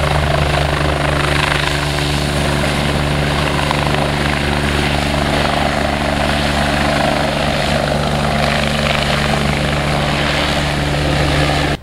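Helicopter lifting off and climbing away, its rotor and engines running steadily and loud. The sound cuts off suddenly at the end.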